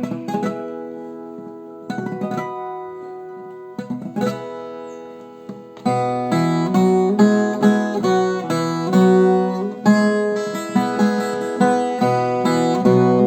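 Viola caipira, the Brazilian ten-string guitar, being played. Three chords are struck about two seconds apart and left to ring out, then from about six seconds in a steady, rhythmic strumming pattern begins.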